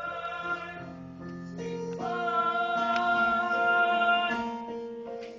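Young voices singing a song from a stage musical over instrumental accompaniment, moving through short notes and then holding one long note about two seconds in that swells and then fades away near the end.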